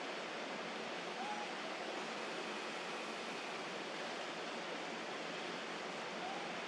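Steady rushing outdoor background noise with no rhythm, and two faint short chirps, one about a second in and one near the end.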